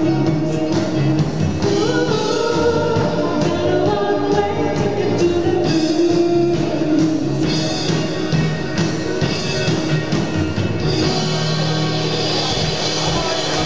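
Live dance band playing, with a woman singing over drums and electric guitar. The singing drops out about halfway through and the band plays on, with the cymbals louder near the end.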